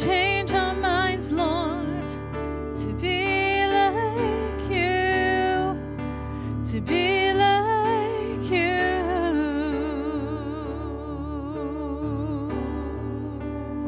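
A woman sings a slow worship song with wide vibrato over sustained keyboard chords. The held sung notes ease off after about nine seconds, and the accompaniment carries on.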